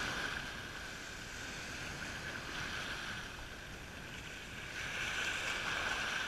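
Small surf waves washing up onto the beach, a steady wash that swells a little near the end.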